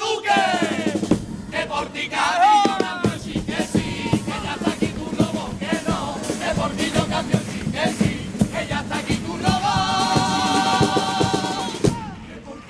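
Cádiz carnival chirigota group performing live: men's voices singing in chorus over a steady drum beat, with a long held chord sung with vibrato that breaks off about a second before the end.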